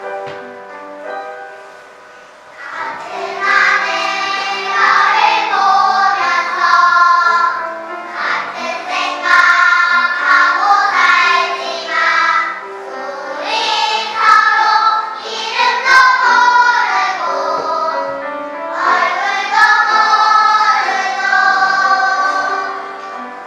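Children's choir singing in parts with piano accompaniment. The piano plays alone for the first two seconds or so, then the voices come in, in phrases.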